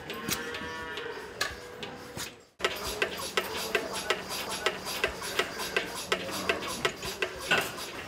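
A cow moos for about two seconds. After a sudden break, a milking machine's pulsator clicks in a quick, regular rhythm over a steady low hum.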